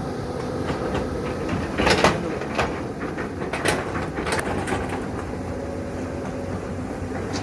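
Caterpillar 320D excavator's diesel engine running steadily under work, with several sharp clanks and knocks from the digging gear, the loudest about two seconds in.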